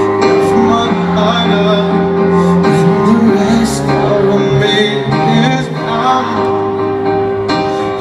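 Live concert music heard from within the audience: a male singer's voice over sustained instrumental notes, steady and unbroken.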